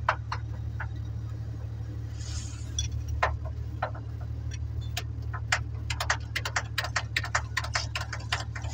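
Mercedes-Benz truck four-cylinder diesel engine running with a steady low hum, under sharp, irregular metallic clicks of a spanner working on a high-pressure fuel line fitting at the unit pump. The clicks start about three seconds in and come fast and often from about five seconds on.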